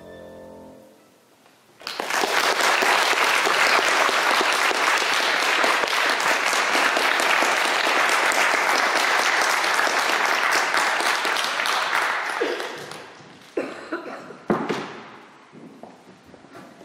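The last held chord of violin and piano dies away, and after a short pause an audience breaks into applause that lasts about ten seconds before thinning out. A few sharp knocks follow near the end.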